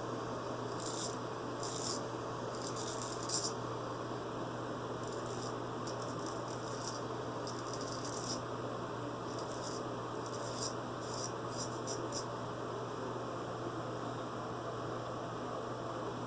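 Naked Armor straight razor scraping across stubble in short strokes, in several quick runs of passes. A steady low hum underlies it.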